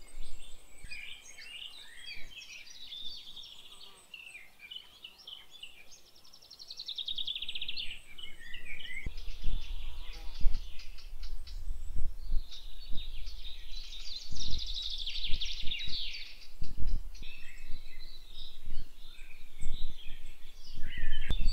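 Woodland birds singing, several at once, with short chirps and rapid trills. From about eight seconds in, a low rumble comes in gusts beneath them.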